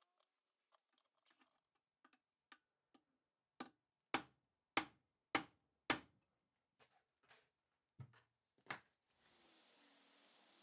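A string of short, sharp clicks and taps, the loudest four evenly spaced about half a second apart, with a few fainter ones after; near the end a faint steady hiss comes in.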